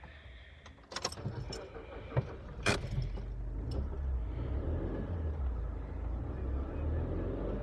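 Car engine running at idle, a low steady rumble that grows a little louder about three seconds in, with a few sharp clicks and knocks in the first three seconds.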